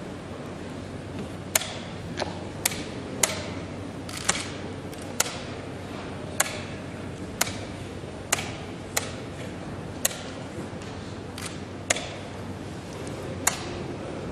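Blitz chess moves: wooden pieces set down hard on the board and the chess clock pressed, heard as about a dozen sharp clicks at an uneven pace, roughly one a second, over steady room noise.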